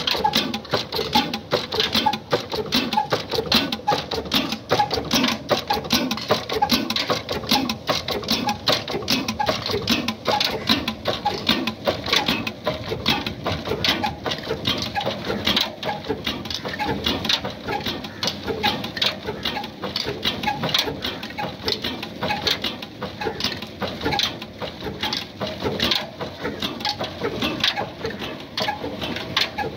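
Old Ruston horizontal single-cylinder diesel oil engine running steadily, its firing strokes knocking in an even, unbroken rhythm.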